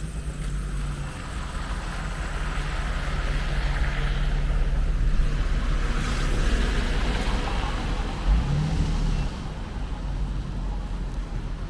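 A car passing on a snowy, wet street: tyre hiss swelling up and fading away over several seconds over a steady low engine hum, with a short low bump near the end of the pass.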